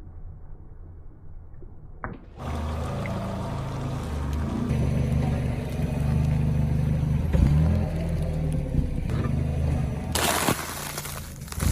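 Liquid gushing and splashing, as from a crushed soft-drink bottle, starting about two seconds in over a low steady hum. A sharper burst comes near the end.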